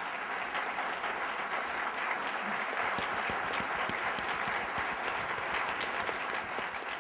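Audience applauding steadily, many hands clapping at once, in response to the end of a speech.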